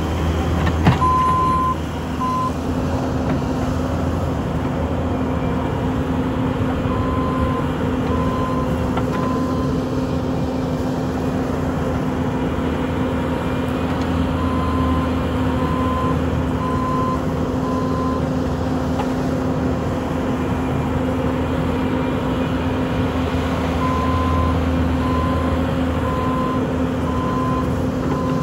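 Bobcat T770 compact track loader's diesel engine running steadily, with its backup alarm beeping in four separate spells as it reverses. One sharp knock about a second in.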